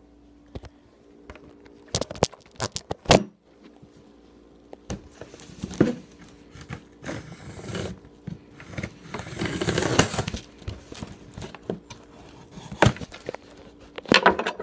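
A shipping package being opened by hand: a few sharp clicks and knocks, then several seconds of scraping, tearing and crinkling of packaging, with more clicks near the end.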